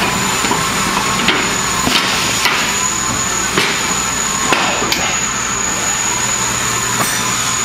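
Irregular metal knocks and taps as aluminium deck panels of a modular platform are fitted and pinned together, about eight in all. Underneath runs a steady workshop background noise with a thin high whine.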